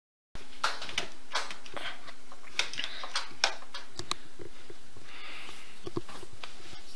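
Embossing heat gun blowing with a steady hiss and faint motor hum while it melts clear embossing powder, with sharp clicks and crackles of the cardstock panel being handled.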